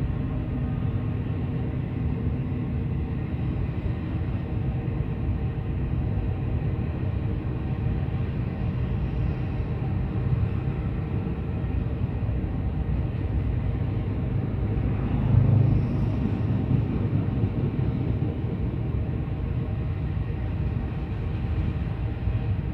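Long train of iron-ore gondola wagons rolling past, a steady rumble of steel wheels on rails. There is a brief louder surge about fifteen seconds in.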